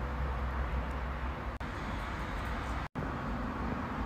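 Steady low background rumble of distant road traffic, cutting out briefly about three seconds in.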